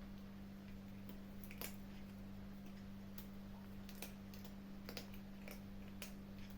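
Kittens chewing food: faint, irregular crunching clicks, about a dozen, over a steady low hum.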